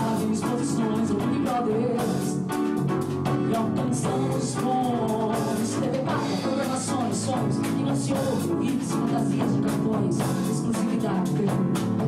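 Pop-rock song: a singer's melody over guitar and a drum kit with regular cymbal strokes.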